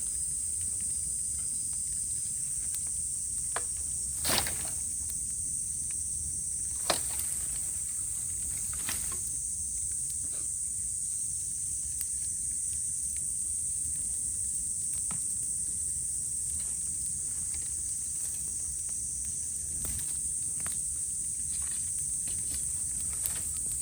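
Cicadas calling in a steady high-pitched chorus, with scattered sharp cracks and pops from bamboo burning in a bonfire. The loudest pops come about four and seven seconds in.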